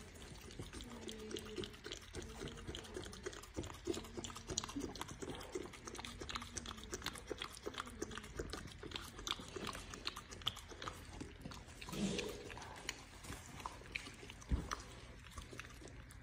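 French bulldog mother licking and mouthing her newborn puppy: a steady run of wet clicks and smacks, with low pitched calls through the first half and a brief louder burst about twelve seconds in.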